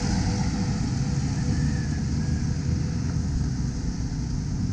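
Steady low rumble of a moving vehicle heard from on board: engine and road noise.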